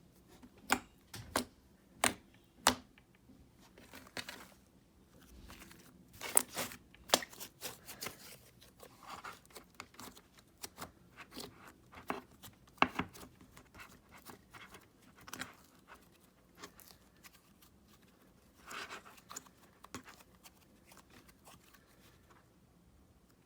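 Slime being squished and stretched by hand, giving off irregular sticky clicks and pops, dying down near the end.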